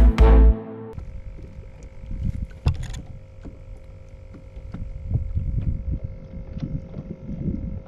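Electronic intro music with heavy beats cuts off about a second in. It gives way to the sound of a fishing boat sitting on the water: an uneven low rumble of wind and water with a steady electric hum and a few faint ticks.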